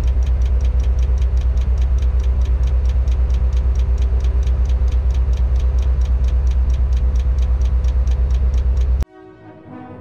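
Tadano 180G-5 crane's diesel engine running, heard from inside the operator's cab, with a deep rumble and a fast, even pulse. It cuts off suddenly about nine seconds in, and orchestral music with timpani begins.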